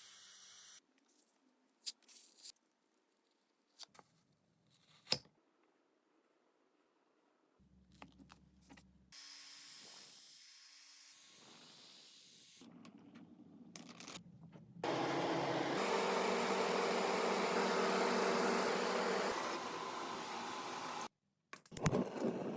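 Hand-tool and machine sounds from restoring an antique candy drop roller, in short cut clips: a few sharp metal knocks and clinks, then a loud, steady machine hum and hiss, like a power tool running, for about six seconds that cuts off suddenly near the end.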